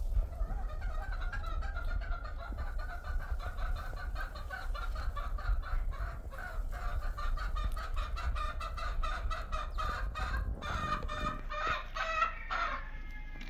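A domestic chicken clucking in a long, rapid run of short calls, louder near the end.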